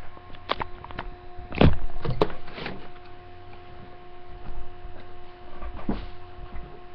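A few thumps and bumps, the loudest about one and a half seconds in, as someone moves about right against the computer's microphone, over a steady electrical hum.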